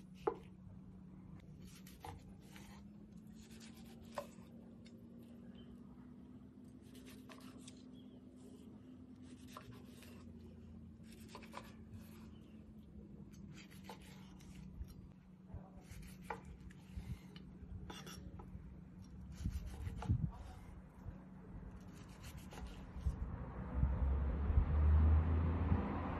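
Large kitchen knife slicing through a cooked wagyu ribeye on a wooden cutting board: a series of short, irregular scraping strokes as the blade cuts the meat and meets the board, over a steady low hum. Near the end a louder rushing noise with a low rumble sets in.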